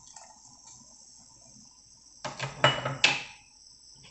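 Kitchen dishes and utensils clinking and knocking against a cooking pot: three or four quick knocks a little over two seconds in, one with a short ringing tone.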